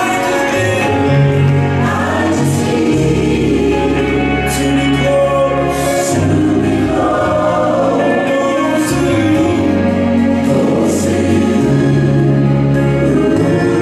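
Gospel music: a choir singing over a band, with sustained bass notes underneath and cymbal splashes every few seconds.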